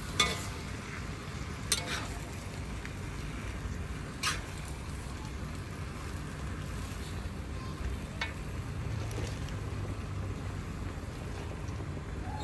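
Greens stir-frying in a wok with a metal spatula: light sizzling, and sharp clanks of the spatula against the wok about four times. A steady low rumble runs underneath.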